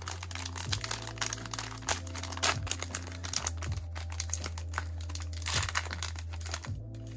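Plastic foil trading-card pack wrapper being torn open and peeled back by hand: a dense run of sharp, irregular crinkles and crackles over a steady low hum.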